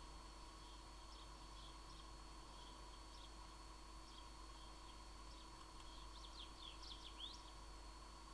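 Near silence: faint room tone with a steady low electrical hum, and faint high chirps scattered throughout, bunched into a quick run of short rising and falling chirps about six to seven seconds in.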